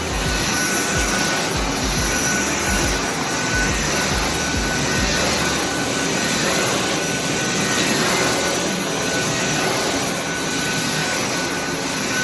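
Dyson cordless stick vacuum running on max power over carpet: a steady rush of air with a thin, high motor whine, switched off at the end.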